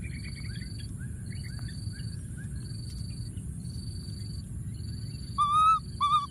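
Baby macaque calling out twice near the end, each call a loud pitched cry about half a second long, the second cut short: a lone baby calling for its companions. Behind it, a thin high note repeats over and over, with faint chirps.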